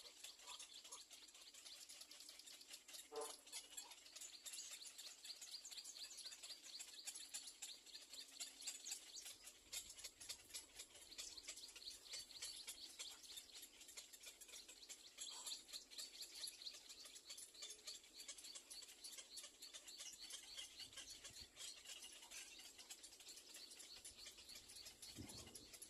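Nestling birds chirping faintly and continuously, a rapid high-pitched trilling chatter with a few lower calls now and then.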